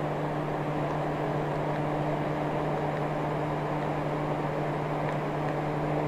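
Orison smart ceiling fan running: a steady rush of moving air over an even, low motor hum.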